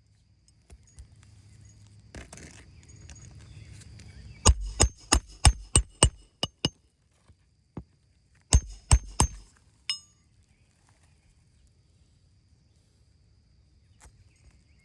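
A hammer striking hard in two quick bursts, about eight blows at roughly three a second and then three more. A last blow gives a short metallic ring.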